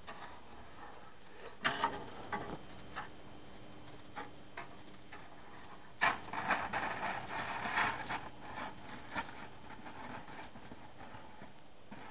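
German shepherd playing with a snow shovel in snow: scattered scrapes, clicks and crunches, with a busier scuffling patch about six to eight seconds in.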